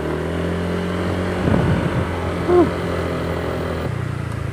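Motorcycle engine running steadily as the bike rides along at low speed, its note shifting near the end. There is a short rattle about a second and a half in and a brief higher tone about two and a half seconds in.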